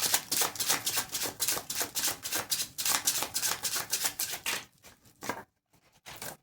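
A deck of tarot cards being shuffled by hand: a rapid, even run of card clicks, about six or seven a second, that stops about four and a half seconds in, followed by a few faint taps.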